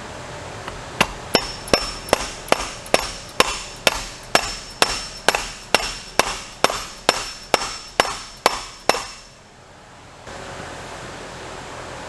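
A hammer tapping on metal transmission parts about twenty times at a steady pace of roughly two or three blows a second, each blow with a short metallic ring, to seat a part during reassembly of a Polaris Ranger 900 transmission. The tapping stops about three seconds before the end.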